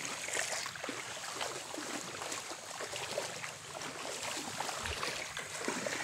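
Footsteps wading and splashing through shallow tidal water on a muddy flat, an uneven patter of small splashes and sloshing over a steady watery hiss.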